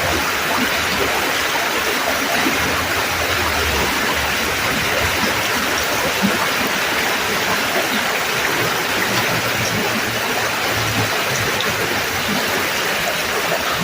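Creek water rushing steadily, an even, unbroken wash of flowing water.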